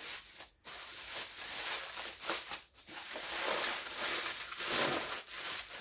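Aluminium foil crinkling and rustling in irregular bursts as hands fold and press it closed into a parcel.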